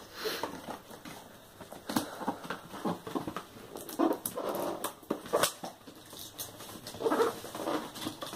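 A cardboard box being opened and handled: irregular taps, clicks and scrapes of cardboard, with louder scuffing about four seconds in and again near the end.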